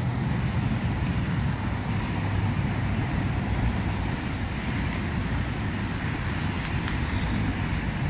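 Steady low wind rumble on the microphone, mixed with a Nissan Rogue SUV rolling slowly toward it in reverse.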